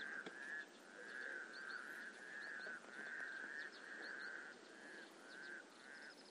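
A frog chorus: an unbroken run of faint trilled croaks, each about half a second long, with a few faint bird chirps above it.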